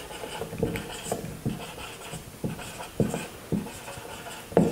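Marker writing on a whiteboard: a string of short, scratchy, squeaky strokes as a word is written out, with one louder stroke near the end.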